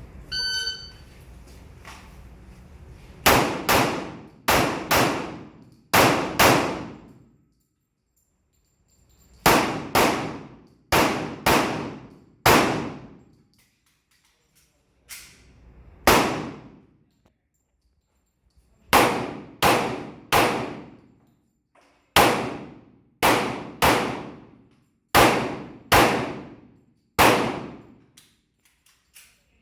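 A shot-timer start beep, then about twenty pistol shots fired in quick pairs and singles, with pauses of a second to a few seconds between strings. Each shot rings on for about a second.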